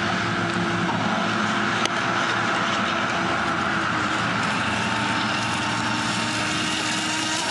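Aquacraft Supervee 27 RC boat running at speed: a steady high whine from its electric motor and drive over a hiss of water and spray, rising slightly in pitch near the end.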